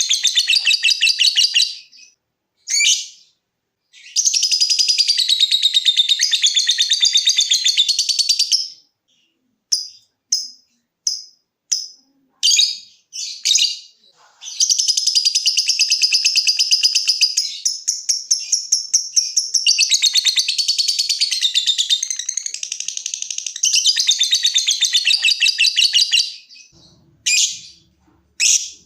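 Lovebird singing: long, rapid, rattling trills (ngekek), several seconds each, broken by runs of short separate chirps (ngetik).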